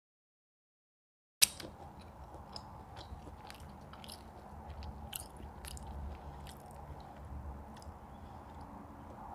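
Close-up chewing and biting of food, with small wet clicks and light crunches. The sound starts after about a second and a half of dead silence, opening with a sharp click.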